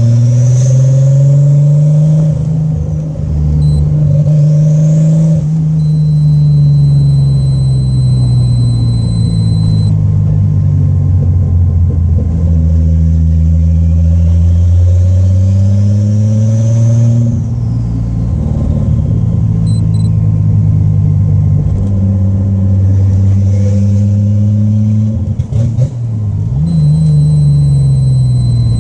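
12-valve VR6 engine with a Holset turbo and open downpipe, heard from inside the cabin while driving. The engine note climbs and falls back several times with the revs and gear changes, and a faint turbo whistle rises with it.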